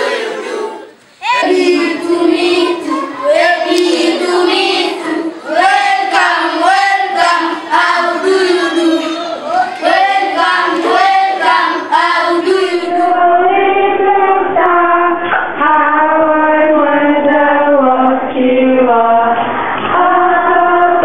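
A large group of schoolchildren singing a song together. The singing breaks off briefly about a second in and starts again, then continues to the end.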